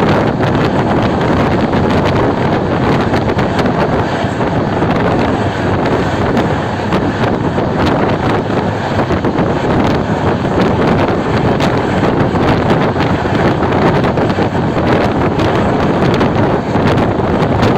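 Steady wind buffeting the microphone over the running noise of an Indian Railways express train at speed, heard from on board.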